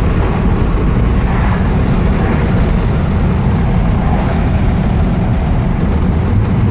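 A 1956 Ford Thunderbird's 312 V8 running steadily while the car drives along, heard from inside the cabin as a steady low drone mixed with road noise.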